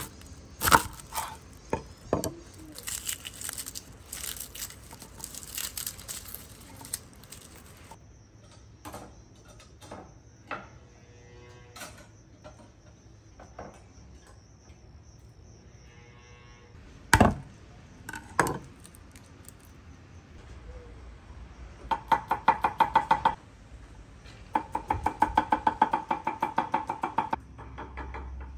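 Hand food-preparation sounds: scattered knocks and clatter of utensils. Near the end come two runs of rapid, even strikes.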